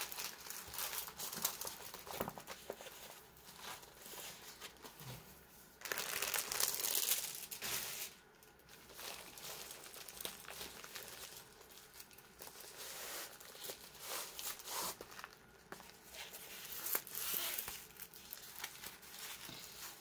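Plastic packaging of a diamond painting kit crinkling and rustling as it is handled and unwrapped by hand, in uneven bursts, loudest about six to eight seconds in and again near the end.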